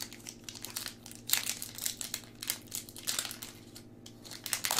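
Foil Pokémon booster pack wrapper crinkling in irregular crackles as it is worked open by hand; the pack is stubborn to open.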